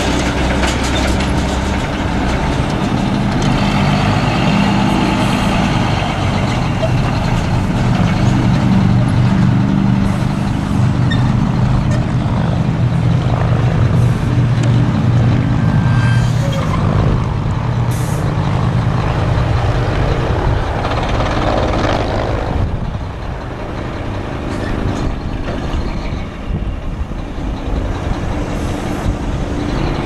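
Semi-truck tractor's diesel engine running as the truck drives slowly by, a steady low engine note that eases off about two-thirds of the way through.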